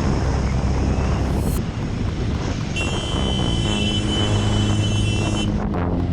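Motorcycle engine running at riding speed, with wind buffeting the microphone.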